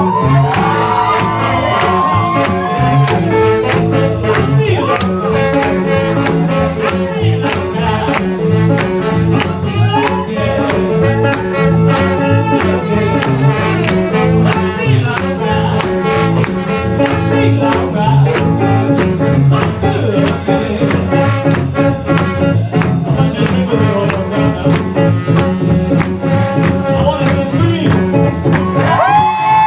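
Live band playing an upbeat jazz-blues tune with a steady drum beat, bass and melody instruments.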